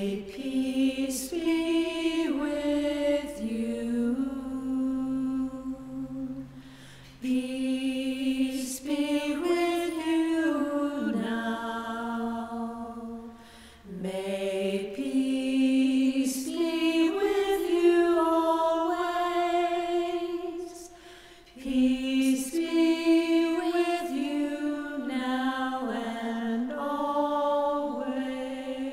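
Women's vocal quartet singing a slow, peaceful song a cappella in close harmony, in four long phrases with brief pauses between them.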